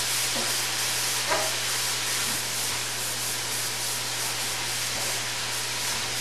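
Chicken and vegetables sizzling steadily in a hot frying pan as a spoon stirs them, with a couple of faint scrapes of the spoon early in.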